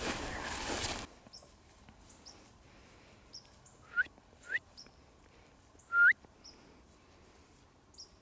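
Music cuts off about a second in, leaving quiet outdoor background with small birds chirping. Three short rising squealing calls sound in the second half, the last the loudest.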